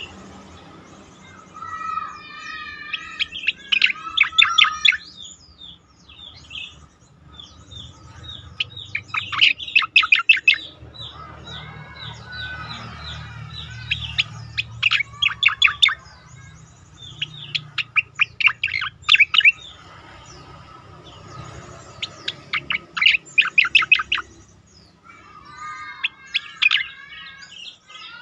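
Striated grassbird song: repeated bursts of fast, steeply sweeping whistled notes, separated by short pauses and softer warbling phrases.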